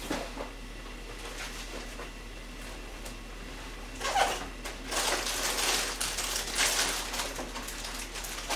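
Tuna kimchi stew boiling in an earthenware ttukbaegi on a gas burner: irregular bubbling and popping, which gets busier and louder about four seconds in.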